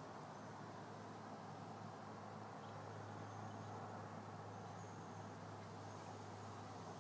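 Quiet outdoor background: a steady low hum with a few faint, short high chirps.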